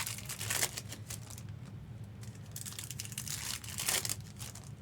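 Trading card pack wrappers and packaging crinkling in short rustles while cards are handled, over a steady low hum.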